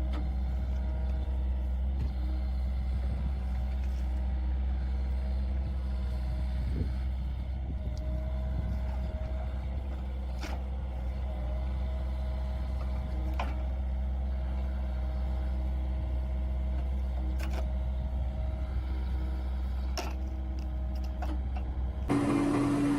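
Yanmar-powered hydraulic wood splitter's diesel engine running steadily, with a scattering of sharp knocks and cracks as the splitting blade works through logs. About a second before the end the sound switches abruptly to a louder engine with a steady hum.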